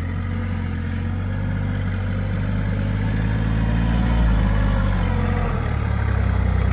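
Engine running steadily at low revs with a deep, even hum, swelling slightly about four seconds in.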